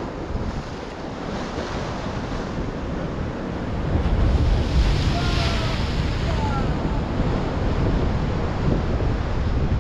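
Sea waves breaking and washing over a rock breakwater, with a bigger wave crashing about four seconds in and the surf staying louder after it. Wind buffets the microphone throughout.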